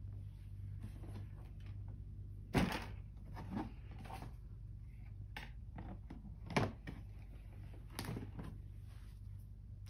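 Red plastic bucket and its lid being handled: several dull knocks and rustles as the lid is put on and the bucket is shifted, the loudest knock about two and a half seconds in, over a steady low hum.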